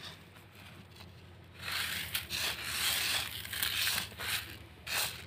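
Dry horse gram seeds being sifted by hand on a woven bamboo tray, the grains shifting and rubbing against the tray as small stones are picked out. It starts about a second and a half in and runs in uneven spells, with a short final burst near the end.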